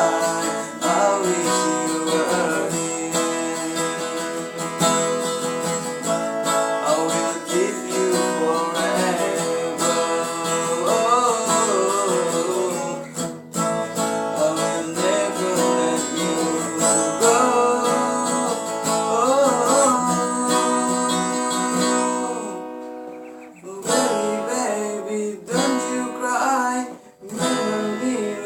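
Acoustic guitar music, plucked and strummed, carrying a melody through a song. It thins out briefly about three-quarters of the way through.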